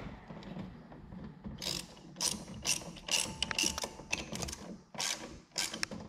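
Socket ratchet wrench clicking in short repeated bursts, about ten strokes from about a second and a half in, as a car battery's terminal clamp nut is tightened to reconnect the battery.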